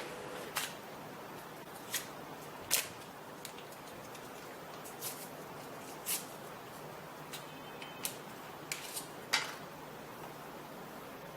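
A dozen or so sharp clicks and snaps at irregular intervals over a faint steady hiss. They bunch together in the last few seconds, and the loudest comes near the end.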